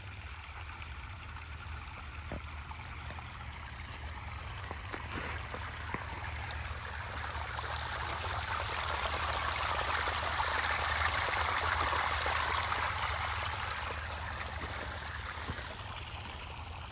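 Stormwater runoff from a downpour rushing through drainage, a steady flow that grows louder in the middle and then eases off again.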